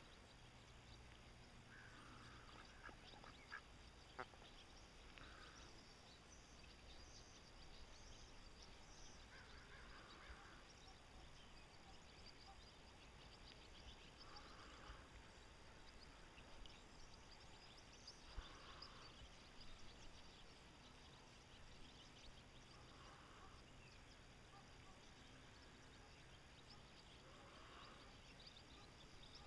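Mallards quacking softly: faint, short calls every few seconds, with a couple of small sharp clicks.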